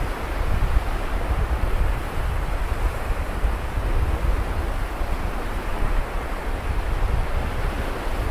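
Sea waves washing steadily on a beach, with wind rumbling on the microphone.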